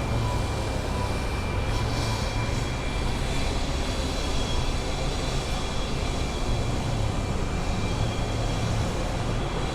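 Steady low engine rumble of vehicles or heavy machinery on a city street, with a faint steady whine above it and no clear starts or stops.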